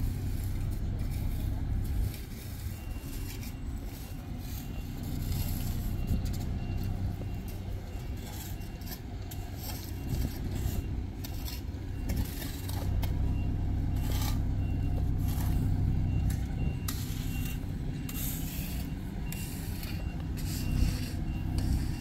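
Steady low rumble of a heavy diesel vehicle at an asphalt paving job, with a reversing alarm beeping repeatedly from about three seconds in. Scattered short scrapes and knocks from hand tools working the hot-mix asphalt sit on top.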